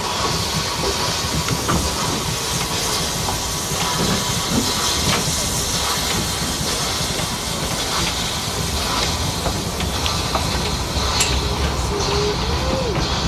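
Narrow-gauge steam locomotive pulling a train of coaches away: a steady hiss of steam over the low rumble of the moving train, with scattered clicks of wheels on the rails.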